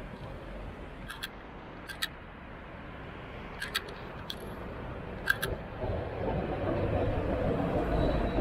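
Articulated tram approaching and rolling past on its rails, its low rumble growing louder from about six seconds in. Before that, a handful of short, sharp clicks.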